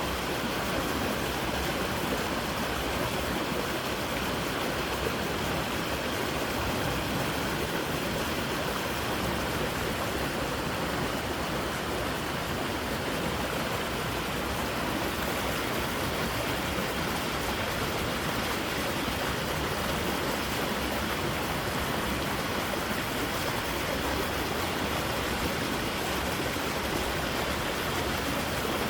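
Creek water rushing steadily over rocks, a continuous even noise.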